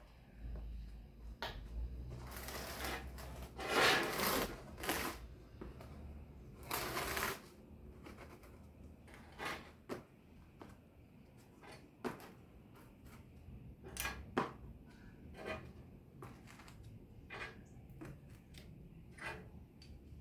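Handling noises: several short rasping scrapes in the first seven seconds or so, then scattered light clicks and taps.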